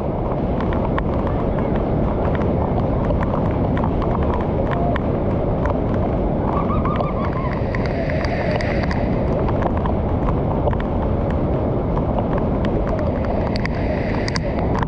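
Loud, steady rush of muddy floodwater pouring over a low concrete spillway and churning in the pool below.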